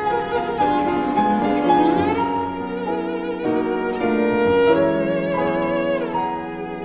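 Background music: a violin melody over bowed string accompaniment, with held notes that waver in pitch about two-thirds of the way through.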